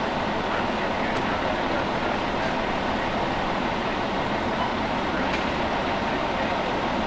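Steady rumble of an idling emergency vehicle engine mixed with street traffic noise.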